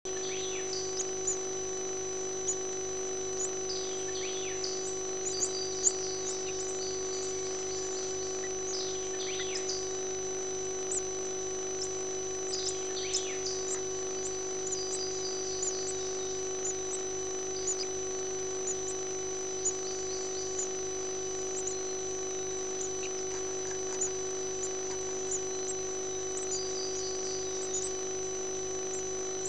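Nestlings in a prothonotary warbler nest parasitized by a brown-headed cowbird begging as the adult warbler feeds them: thin high peeps and short falling squeaks, a few a second. A steady electrical hum from the nest-box camera runs underneath.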